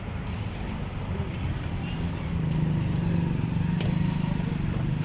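Street traffic noise with a vehicle engine running close by, a steady low hum that grows louder about two seconds in. Near the end comes a single sharp clink of steel serving vessels.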